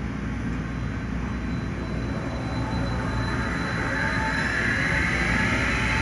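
Rubber-tyred Wenhu line metro train approaching the station: a steady low rumble growing louder, with a whine that rises in pitch from about three seconds in.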